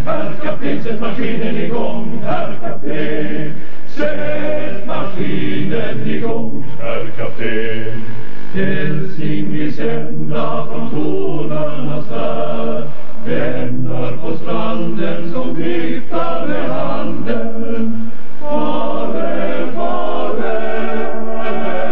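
Male choir singing, phrase after phrase with short breaks between.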